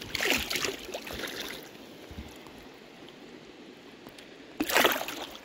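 Splashing in shallow river water as a netted fish is handled and let go: a burst of splashes over the first second and a half, then one short, louder splash near the end, over the steady sound of the flowing stream.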